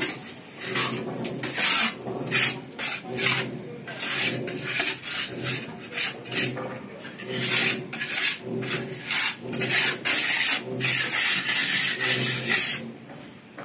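Pointed steel trowel scraping and smoothing wet cement mortar against a cement wall around wall-mixer pipe fittings, in repeated rasping strokes about one or two a second, with one longer scrape near the end.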